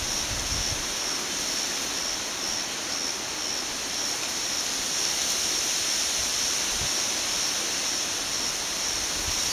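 River water flowing over a shallow stretch: a steady rushing hiss. A high pulsing, about twice a second, runs in the background.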